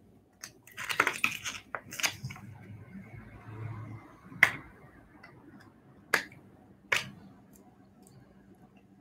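A vintage baseball card and a thin plastic card sleeve being handled. A cluster of crinkly plastic clicks comes in the first two seconds, then a soft sliding rustle, then single sharp clicks about four and a half, six and seven seconds in.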